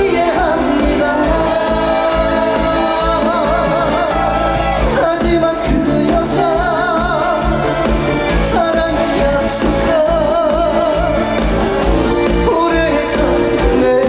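Live trot music played through a stage sound system: band accompaniment under a wavering melody line with strong vibrato, with no clear sung words.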